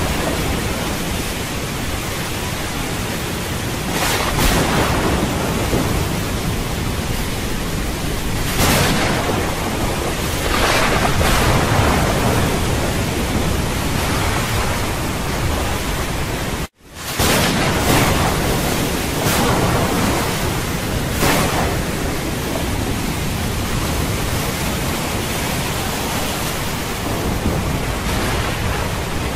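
Lake water surging and splashing around people wading in the shallows: a loud, steady rush with a swell every couple of seconds. The sound cuts out for an instant a little past halfway.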